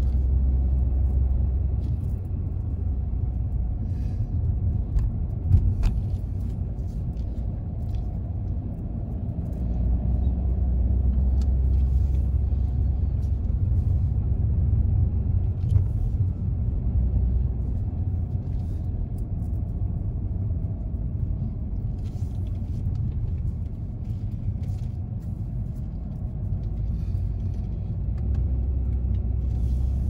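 Low rumble of a car driving, heard from inside the cabin: engine and tyre noise that swells and eases as the car winds along the road, with a few light knocks.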